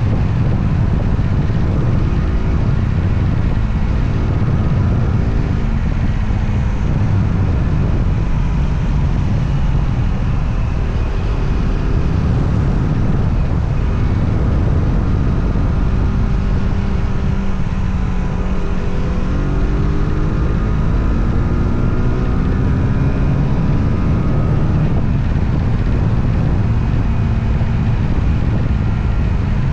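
Motorcycle engine running while riding, its revs rising and falling several times as the rider accelerates and eases off, over a steady low rumble of road and wind noise.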